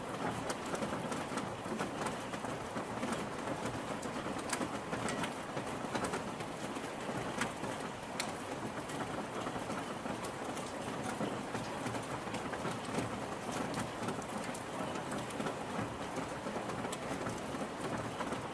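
Steady rain falling, an even hiss with scattered sharp ticks of individual drops hitting close by.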